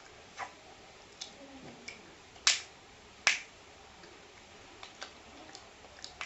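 A series of short, sharp clicks and snaps, with two much louder ones near the middle, less than a second apart.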